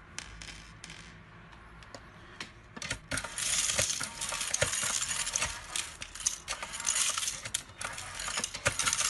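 FUMA FA-560 automatic screw feeder shaking small steel screws along its vibrating rail: a few sharp clicks, then from about three seconds in a dense, high-pitched metallic rattle and clinking as the feeder runs to refill the rail after a screw is taken.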